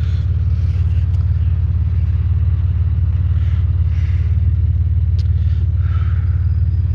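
Truck engine idling steadily with a low, even rumble.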